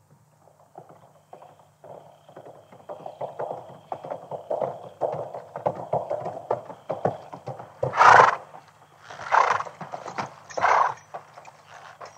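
Horses' hooves clip-clopping as several riders approach, the hoofbeats growing denser through the middle. About eight seconds in a horse whinnies loudly, and it calls twice more, more briefly.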